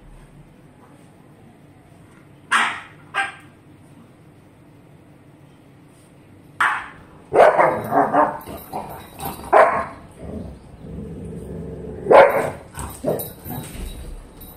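Dogs barking in play, a French bulldog and a Staffordshire bull terrier teasing each other: two sharp barks about two and a half seconds in, then a quick flurry of barks from about six and a half seconds, and more around twelve seconds.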